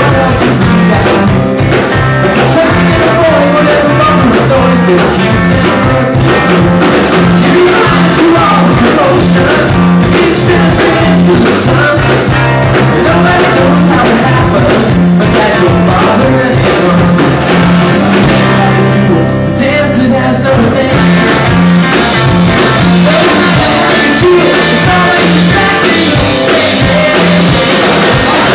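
Live rock band playing: electric guitars and drum kit with a lead singer, a steady rock rhythm.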